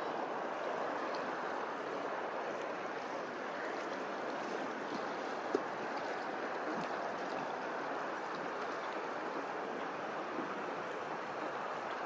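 Steady wash of rippling open water lapping, with one short click about five and a half seconds in.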